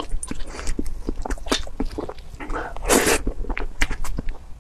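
Close-miked eating of whipped-cream layer cake from a metal spoon: many small wet mouth clicks and smacks, with one louder, longer noisy burst about three seconds in.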